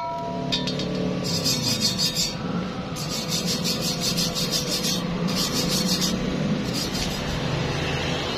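Hand wire brush scrubbing a freshly chipped stick weld on galvanized square steel tube, cleaning off the remaining slag, in several bursts of scratching strokes over a steady low hum.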